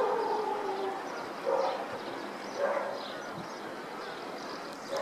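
A dog barking: one longer drawn-out call at the start, then three short barks spaced a second or so apart.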